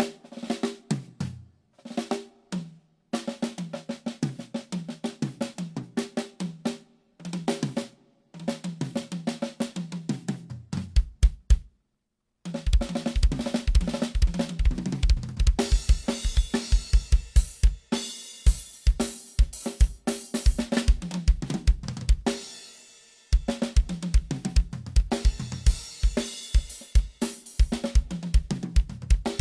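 Acoustic drum kit played solo during a sound check: tom and snare fills stepping down in pitch, broken by short pauses, then from about the middle a fast, even run of bass drum strokes under crashing cymbals and snare, with a brief stop near the end.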